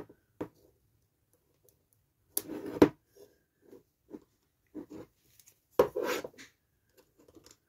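Diecast metal and plastic parts of a toy crane boom being handled and worked apart by hand: scattered light clicks and knocks, with two longer scraping rattles about two and a half and six seconds in.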